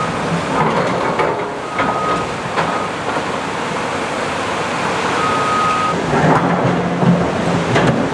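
Heavy earth-moving machinery placing riprap rock: a steady rumbling roar with a few short high beeps from a backup alarm and occasional knocks.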